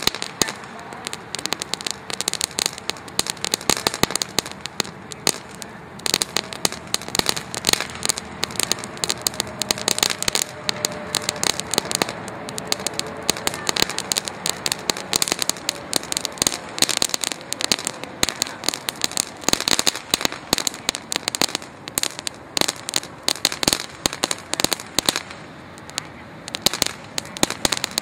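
Small ground fountain firework (Naughty Boys) crackling and sparking steadily, a dense irregular stream of sharp little pops that keeps going throughout.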